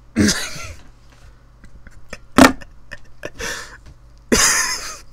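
Four short, breathy bursts of a person's voice without words. The sharpest and loudest comes about two and a half seconds in, and the longest comes near the end.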